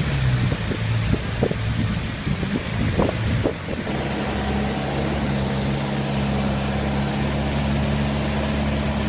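Engine running steadily. For the first few seconds irregular knocks and bumps sound over its low rumble; then an even, unchanging drone takes over.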